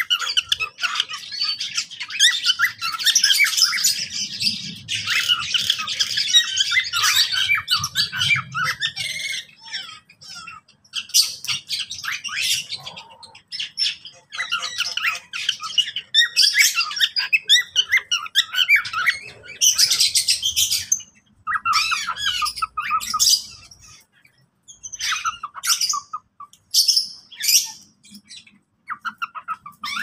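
Mixed flock of aviary birds (mynas, Java sparrows, lovebirds and a cockatiel) calling and chirping over one another, a dense chorus for about the first ten seconds, then in separate clusters of calls with short pauses between them.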